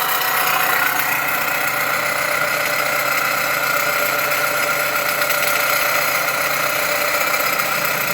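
Car engine idling with a steady, many-toned whining racket from the accessory drive, which the mechanic traces to the alternator, loudest at its rear. A worn pulley and a slightly noisy A/C compressor add to it.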